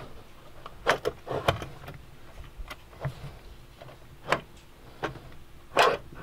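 Knocks and clicks from a Midnite Solar Kid MPPT charge controller being handled and taken off its bulkhead mount: a handful of separate sharp knocks, the loudest near the end.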